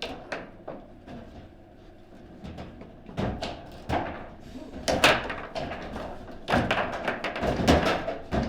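Table football play: the ball is struck by the rod-mounted players and rattles off the table walls, and the rods bang against the table sides. The knocks come irregularly, sparse at first and then a quick run of loud hard hits over the second half.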